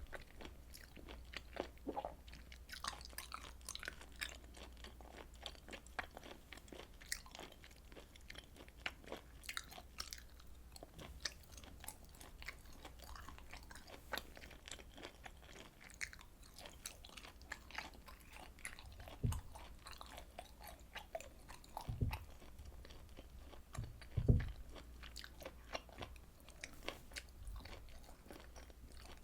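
Close-miked chewing of grilled beef and pork intestines: a dense, irregular stream of wet clicks and crunches over a faint low hum. Three low thumps come in the second half, the loudest about 24 seconds in.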